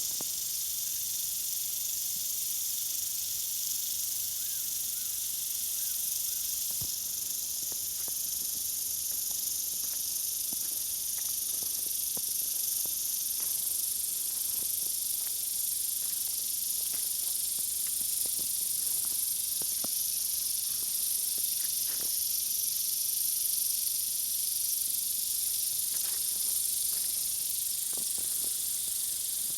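Overhead mini-sprinklers spraying water, a steady high hiss with scattered faint ticks.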